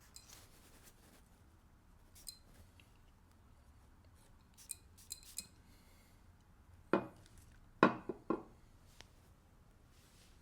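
Glass perfume bottle and its cap clinking and clicking as they are handled, with a light high ringing after each click. About seven seconds in come three louder short noises, close together.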